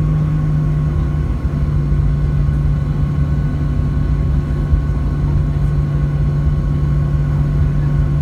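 Boeing 737-800's CFM56-7B turbofan engine running at a steady pitch, a strong low hum over a deep rumble with fainter higher tones above.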